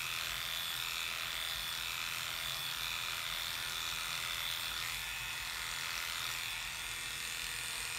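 Electric dog grooming clippers with a number 10 blade running steadily as they shave a dog's body coat short.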